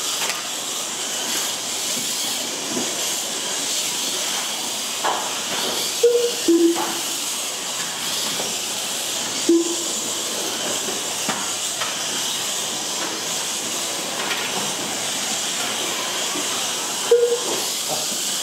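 Several mini RC race cars lapping a foam-tile track: a steady high whine and hiss from their small electric motors, gears and tyres. A few short beeps break in, three of them between about six and ten seconds in and one near the end.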